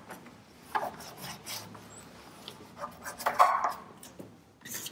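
Microfibre cloth rubbing over car paint, wiping off sprayed cleaner where badge adhesive residue was. It comes as irregular soft swishes, the loudest about three and a half seconds in.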